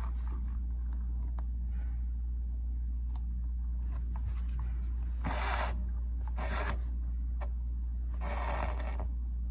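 Embroidery thread being drawn through fabric, three brief pulls in the second half, each under a second long. A steady low hum runs underneath.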